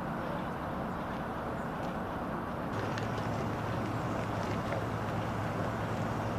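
Diesel locomotive running: a steady low engine drone that strengthens about three seconds in, with a few light clicks over it.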